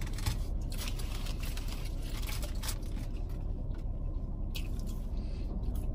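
Steady low hum of a car cabin, with a few soft clicks and rustles scattered through it.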